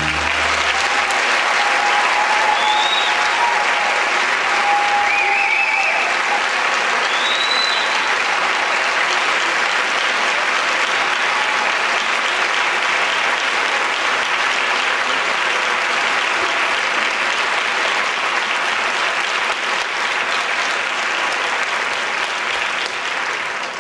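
Audience applauding steadily after a dance performance's music ends, with a few pitched cheers or whistles over the clapping between about three and eight seconds in.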